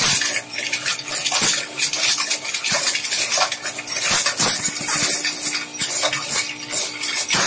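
Twin-shaft shredder's interlocking cutter discs crushing and tearing metal parts: continuous metallic crunching and clattering with many sharp cracks, over a steady hum.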